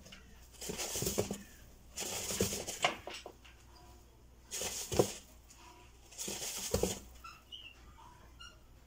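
A chinchilla taking a sand bath in a plastic tub: four short bouts of sand rustling and scattering as it rolls, each lasting about a second or less, with quiet gaps between.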